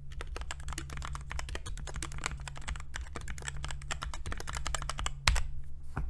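Fast typing on a Redragon Kumara K552 mechanical keyboard fitted with Krytox-lubed Outemu Red linear switches and foam under the plate: a rapid, continuous run of keystroke clacks, with one louder strike just after five seconds in. A steady low hum sits underneath.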